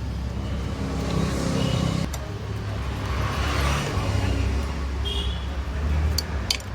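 Steady low rumble of a motor vehicle's engine running close by, with a few sharp clicks near the end.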